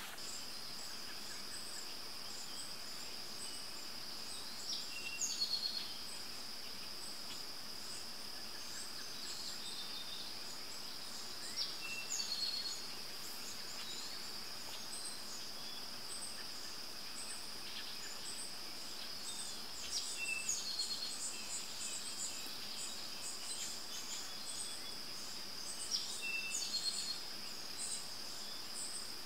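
Steady high-pitched insect trill, with short bursts of bird chirps about every six to eight seconds.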